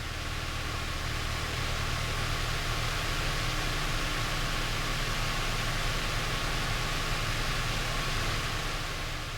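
Steady cabin noise of a twin-engine Beechcraft Travel Air in flight: the drone of its two piston engines under a broad rush of hiss. It swells up over the first couple of seconds and falls away near the end.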